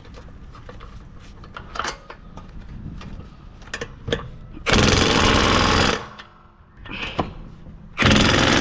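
Impact wrench hammering in two bursts of about a second and a half each, with small clicks and knocks of handling the wheel and lug bolts before them.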